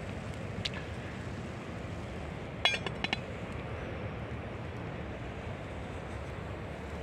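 Steel pot lid set back on a cooking pot, clinking metal on metal with a short ring twice in quick succession about three seconds in, over steady low background noise.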